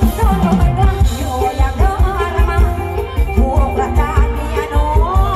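Live band music, loud and amplified, with a woman singing a wavering melody over electric guitars and keyboard and a heavy, steady kick-drum beat.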